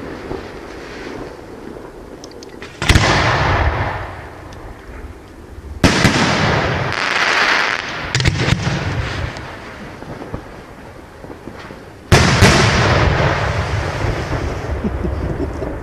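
Fireworks display: aerial shells bursting with sudden bangs about three seconds in, near six seconds, near eight seconds and about twelve seconds in. Each bang is followed by a long hissing, crackling tail that fades over a few seconds.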